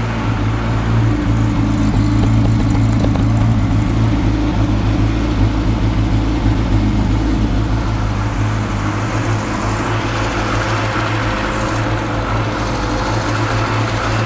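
Classic Mini's A-series four-cylinder petrol engine running steadily at idle. It has just fired after a long crank, once the fuel starvation, taken for an airlock between tank and pump, was cleared by pressurising the tank.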